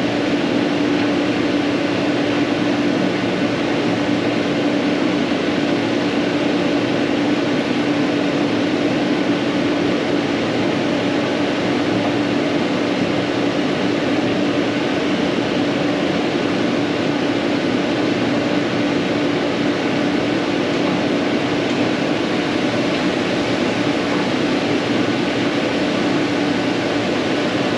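A steady mechanical hum with a constant low tone and an even hiss over it, unchanging throughout.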